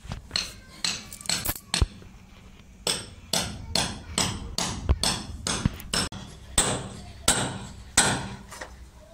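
Hand hammer striking repeatedly into packed soil and broken brick at the foot of a wall, about two blows a second with a short pause around two seconds in.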